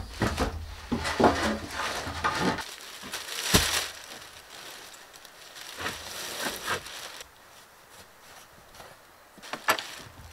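Hammer blows on wood overhead in a small plank room for the first couple of seconds. Then rustling and crinkling as plastic-wrapped insulation is handled, with a few knocks.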